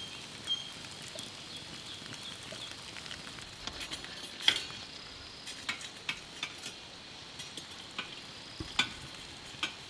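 Foil-wrapped beef ribs sizzling on a charcoal grill: a soft steady hiss with scattered sharp crackling pops, the loudest about halfway through.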